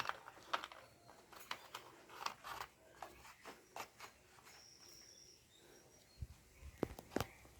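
Scattered light clicks and knocks of a motorcycle wiring harness and its plastic plug connectors being handled, with two sharper knocks near the end.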